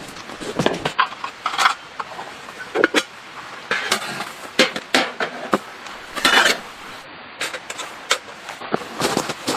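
Irregular knocks, clinks and rustling, a dense run of short sounds like things being handled and set down.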